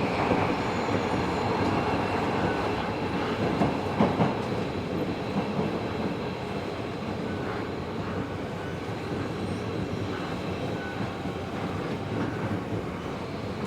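Tobu 70000 series subway train running, heard from inside the passenger car: steady wheel-on-rail and running noise. There is a sharp knock about 4 seconds in, and the noise eases slowly after it.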